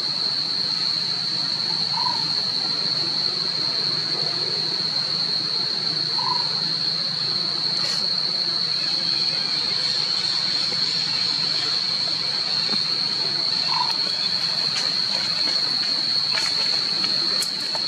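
Steady, high-pitched insect drone over an even hiss of forest background, with three faint short chirps a few seconds apart.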